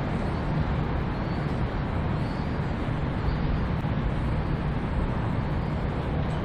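A Y class diesel shunter running as it pushes a set of passenger carriages: a steady low rumble.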